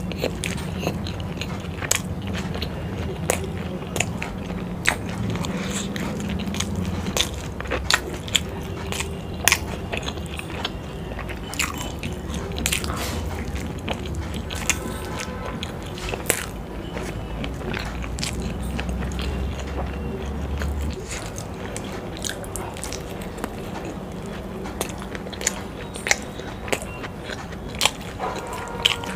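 Close-miked chewing and biting of momos (steamed and fried dumplings), with many sharp mouth clicks and smacks. A low steady hum underneath drops away about two-thirds of the way through.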